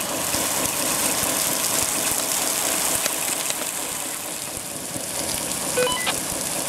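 Steady rushing hiss of a water spray from a model fire engine falling on a small gas tank to cool it, over an engine-like running sound. A few short beeps come near the end.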